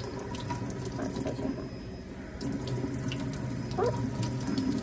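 Kitchen faucet running warm water into the sink, splashing over a toy doll held under the stream. The flow sound dips briefly about two seconds in, then carries on steadily.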